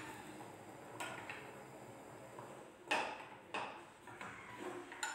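A few faint clinks and knocks of kitchenware being handled: one about a second in, two close together near the middle, and one near the end.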